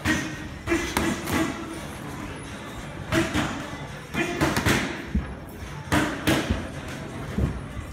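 Boxing gloves landing in a sparring exchange: about ten sharp thuds at irregular intervals, some coming in quick pairs.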